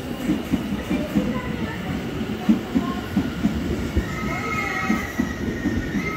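London Overground Class 710 electric multiple unit rolling slowly alongside the platform, with a regular low clatter of wheels about three times a second. A high whine joins in about four seconds in.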